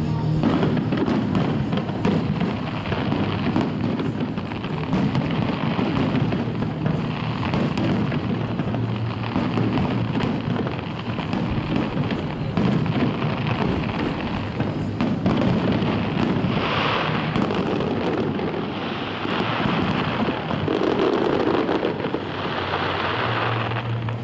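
Fireworks display: aerial shells bursting and crackling almost without pause, with music playing alongside.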